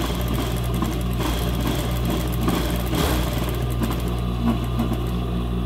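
Industrial sewing machine running steadily as it stitches a gathered fabric strip, a continuous motor hum.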